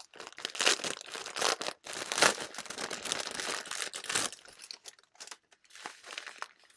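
Clear plastic packaging crinkling and rustling as it is handled and opened, in a dense run of crackles for about four seconds, then only a few faint ones.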